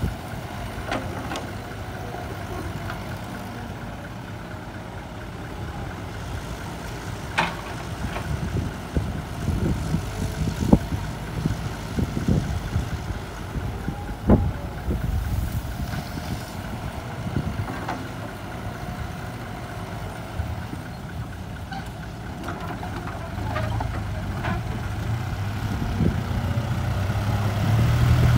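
Diesel engines of a Caterpillar 312 excavator and an Isuzu dump truck running, with a few sharp knocks as the excavator dumps soil and rocks into the steel truck bed. Near the end the truck's engine grows steadily louder as it pulls away loaded.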